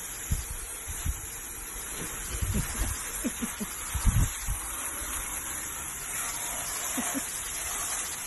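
Water spraying in a fine mist, a steady hiss, with a few low thumps in the first half.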